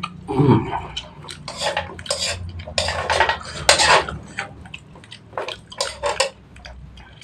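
A metal fork scraping and clinking against a wok while picking up instant noodles, in a string of short scrapes and clicks.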